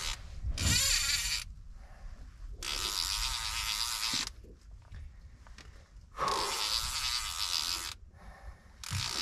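Fishing reel running in three bursts of one to two seconds each, with a fourth starting near the end, under the load of a large red porgy fighting on the line.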